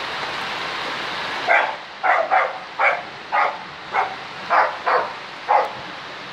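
A dog barking, about nine short sharp barks in a quick series starting about a second and a half in, over the steady hiss of heavy rain.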